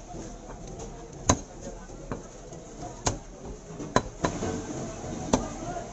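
A large curved knife chopping chicken pieces on a wooden stump block: about six sharp chops at uneven intervals, the loudest about a second in, at four seconds and near the end.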